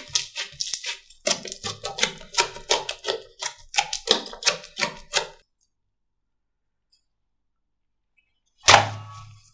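Slime being squished and poked, making rapid crackling clicks and pops for about five seconds. It then cuts to silence, and near the end a single thud sounds and fades.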